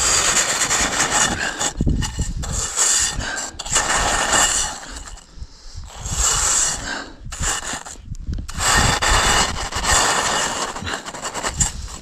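Snow being scooped and scraped up into a metal cooking pot: a series of crunching scrapes in about four long strokes, with short pauses between them, gathering snow to melt for water.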